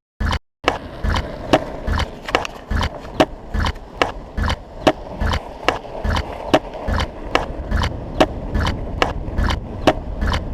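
A rhythmic loop of short, sharp knocks, about two to three a second, some with a deep thud beneath, made from chopped-up city sound recordings. About half a second in, a steady bed of street noise comes in under the knocks.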